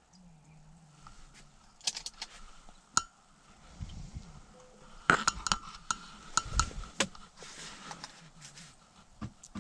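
Irregular sharp clicks and light clinks from small ice-fishing tackle being handled over a bucket, with a few soft knocks; the busiest stretch comes a little past halfway.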